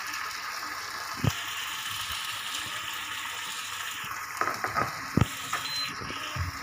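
Tomato sauce sizzling and bubbling in a nonstick frying pan as it is stirred with a wooden spatula, with a knock of the spatula on the pan about a second in and a few more knocks toward the end.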